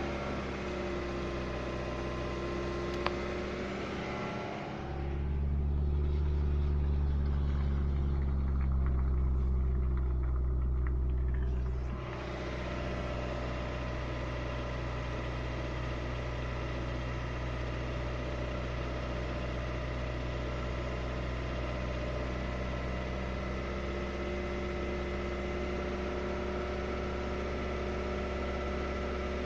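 Lada VAZ-21126 1.6-litre 16-valve four-cylinder engine idling steadily, run to judge whether it has a knock. About five seconds in it turns louder and duller for some seven seconds, then settles back.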